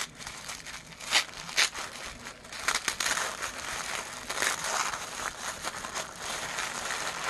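Tissue paper crinkling and rustling as it is unwrapped from a tightly bundled item, with a few sharp crackles in the first seconds and denser, continuous rustling from about three seconds in.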